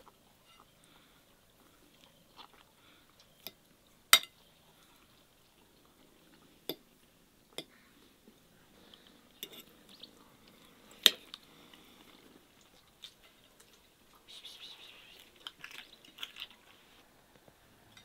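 A fork clinking against a plate during a meal: a few sharp, separate clinks, the two loudest about four and eleven seconds in, with quiet eating sounds between and a busier patch of clatter near the end.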